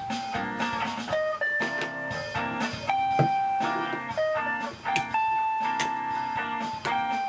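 Background music led by guitar, plucked notes over a steady instrumental bed.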